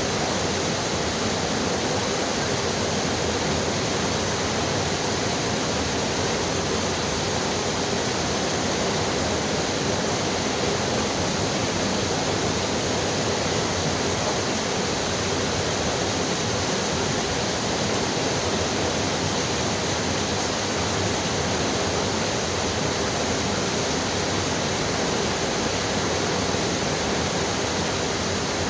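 Heavy rain falling steadily, an even hiss with no change in level.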